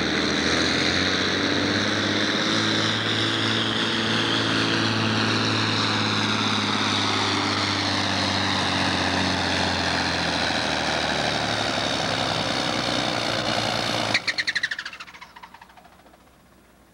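Farm stock pulling tractor's engine at full throttle dragging a weight-transfer sled, its pitch slowly sinking as the engine lugs down under the building load. About fourteen seconds in the engine cuts off abruptly and sputters to a stop within a second.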